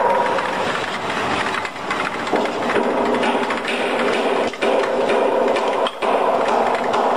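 Four-head spiral scourer making machine running, a loud, dense mechanical clatter as it knits stainless steel wire into scourers, dipping briefly twice in the second half.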